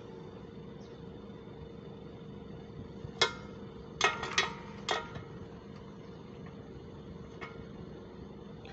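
Air-conditioning system running with a steady hum, its compressor not ramping up. Sharp ringing clicks cut across it: one about three seconds in, a quick run of four a second later, and a faint one near the end.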